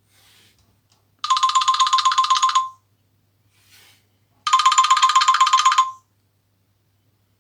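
Nokia C5-00 mobile phone playing a trilling, old-style telephone ringtone through its loudspeaker. It rings twice, each ring a rapid electronic warble about a second and a half long, with a pause of about two seconds between the rings.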